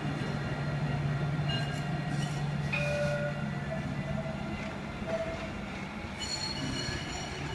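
Alstom Citadis tram running along its track and pulling away, with a steady low hum from its drive. A few short high tones sound over the hum.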